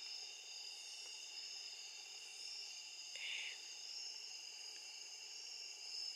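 Insect chorus: several steady, high-pitched trills at different pitches, with a brief soft hiss about three seconds in.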